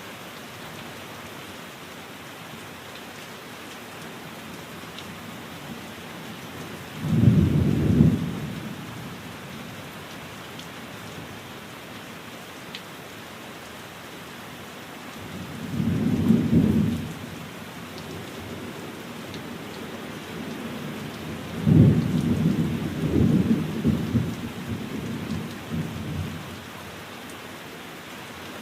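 Steady heavy rain with three rolls of thunder: a short sharp one about a quarter of the way in, a second near the middle, and a longer rolling one in the last third.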